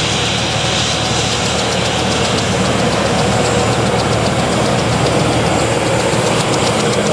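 Embraer E190 airliner taxiing past, its two GE CF34 turbofan engines running steadily at low taxi power with a whine over a broad rush.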